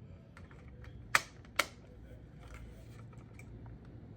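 Two sharp plastic clicks about half a second apart, a little over a second in, with a few faint ticks, from a smoke alarm's housing being handled between sounding tests.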